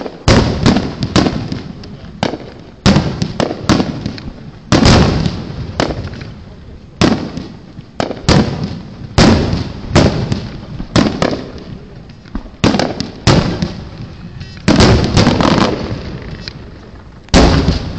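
Aerial fireworks bursting overhead in a rapid barrage: a string of sharp booming bangs, one every second or so, each trailing off in a rumbling echo, with crackling between them.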